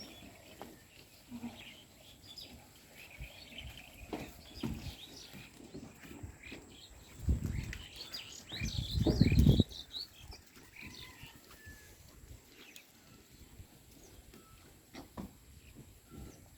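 Farmyard ambience: scattered bird chirps and small knocks, with a loud low rumbling rustle from about seven to nine and a half seconds in.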